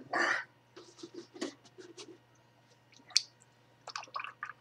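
A man's hard breath out at the start, then scattered small clicks and mouth noises, with one sharp click about three seconds in. His mouth and throat are burning from eating ghost chili peppers.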